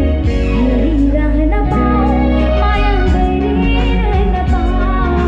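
Amplified live band: a woman singing a melody into a microphone, backed by guitar and keyboard over a steady bass.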